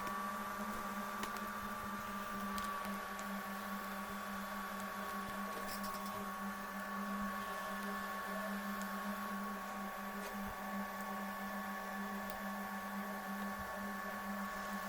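Homemade 3D printer running under test, giving a steady whine with several held tones over a constant low hum.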